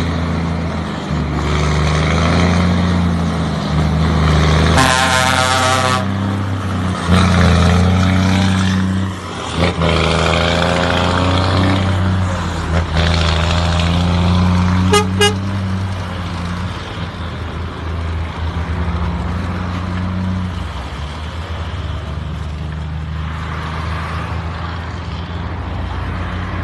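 Truck diesel engine running with a deep exhaust rumble, its pitch stepping up and down as it is driven. A horn sounds about five seconds in, and there are two short toots near the fifteen-second mark.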